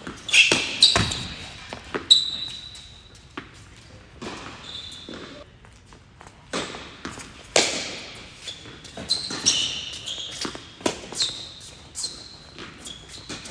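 Tennis ball struck by rackets and bouncing on an indoor hard court during a doubles rally, each hit a sharp knock that echoes around the hall, with short high shoe squeaks between shots.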